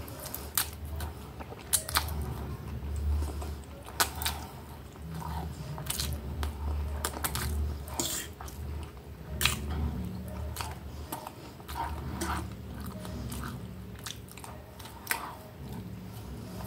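Close-miked chewing and mouth smacks of a person eating spaghetti, with many sharp wet clicks, over a low steady rumble.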